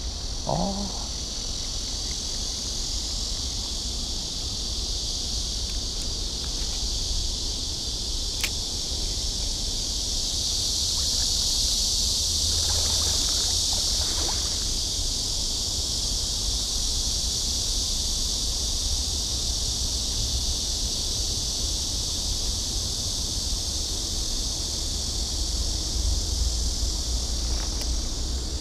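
A steady, high insect chorus, swelling a little about halfway through, over a low rumble. A few faint handling clicks from a spinning reel and line come in about halfway.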